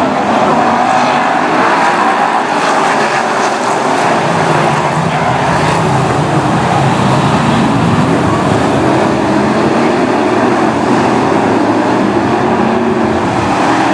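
A pack of BriSCA F1 stock cars racing, their V8 engines running hard and revving up and down as they pass.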